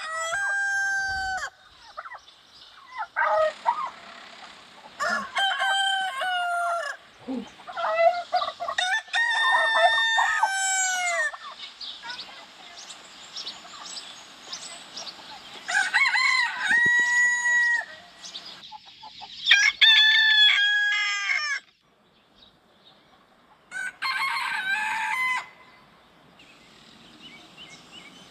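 Roosters crowing again and again, about seven crows with short pauses between, some overlapping.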